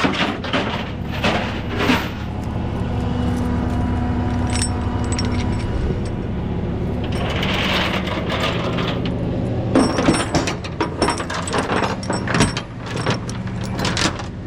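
Tie-down chains clinking and rattling in bursts as they are handled and hooked, over a steady idling engine.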